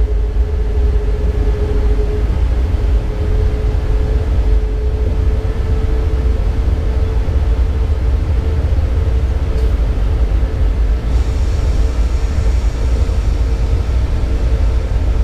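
Class 189 (Siemens ES64F4) electric locomotive running under way, heard from inside the driver's cab. There is a steady low rumble with a steady whine that rises slightly in pitch during the first few seconds and then holds.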